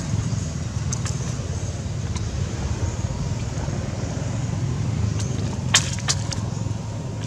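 Steady low rumble of outdoor background noise, with a few sharp clicks, the loudest two close together about six seconds in.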